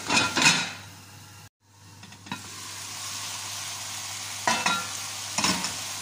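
Chicken pieces sizzling in oil in a pot, louder at first, with a brief break about a second and a half in. Near the end a glass pot lid clinks twice against the rim as it is set on.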